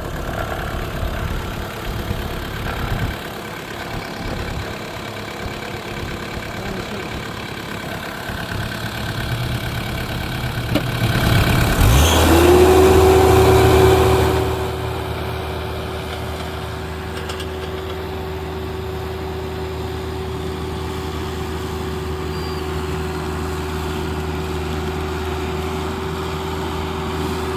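Engine running steadily. About eleven seconds in, a louder rush of noise lasts some three seconds, and from about twelve seconds a steady whine rises in and holds.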